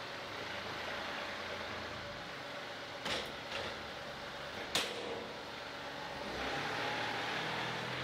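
Diesel loader engine running steadily as it sets a log on a sawmill bed and backs away, with two sharp metallic knocks about three and about four and a half seconds in; the engine note rises a little near the end.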